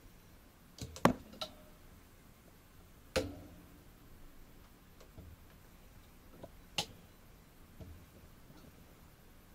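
A handful of sharp clicks and knocks over a quiet room. The loudest come about a second in and just after three seconds, and another sharp one comes about two-thirds of the way through.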